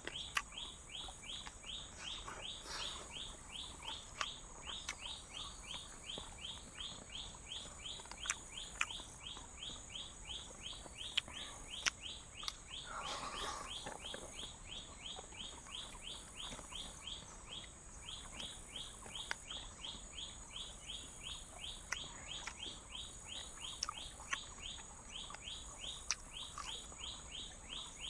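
Night chorus of calling animals: a steady high insect trill under a continuous run of short, falling chirps repeated about three to four times a second, with occasional sharp pops.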